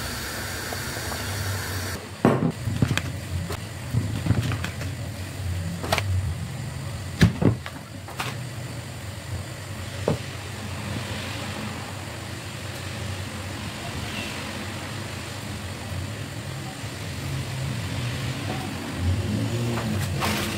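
Kitchen handling noises: butter paper rustling and a glass jar knocked and set down on a wooden countertop, several sharp knocks in the first half, over a steady low background rumble.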